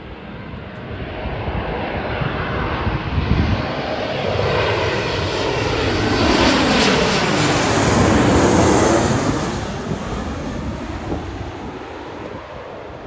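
Airliner flying past, its engine noise swelling to a loud peak and then fading away as it goes by.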